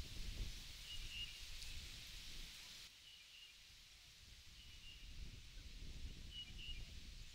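Wind gusting over a grassy field, rumbling on the microphone and rustling leaves, while a bird repeats a short high call about every couple of seconds.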